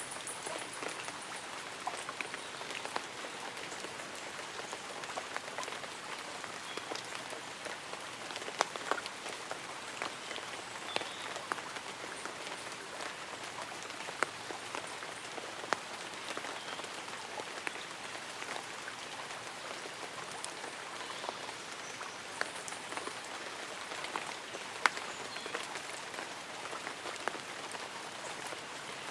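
Light rain falling on tree leaves and an umbrella: a steady patter with scattered individual drops ticking out a little louder.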